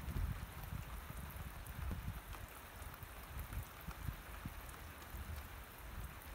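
Steady rain falling, a dense patter of many small drop ticks, with a low rumble underneath that is strongest near the start and then eases off.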